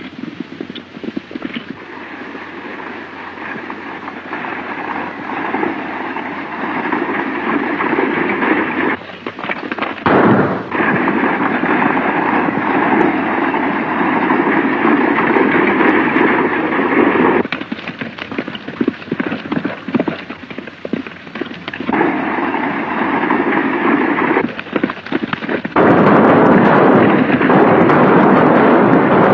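Sustained film gunfire: many shots in quick succession through a continuous crackle, on an old 1930s soundtrack. The level jumps abruptly several times and is loudest near the end.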